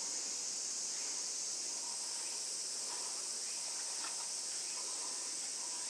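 Steady, high-pitched chorus of summer insects, with faint short chirps now and then.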